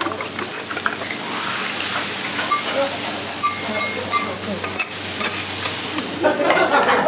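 Beaten egg sizzling as it is poured and spreads on a hot iron teppan griddle, a steady frying hiss. A metal spatula clinks a couple of times and scrapes and clatters on the griddle near the end.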